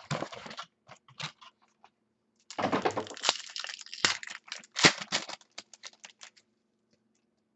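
A foil trading-card pack wrapper being torn open and crinkled by hand. A short rustle comes at the start, then scattered clicks, then a few seconds of dense crinkling and tearing with several sharp cracks, stopping about a second before the end.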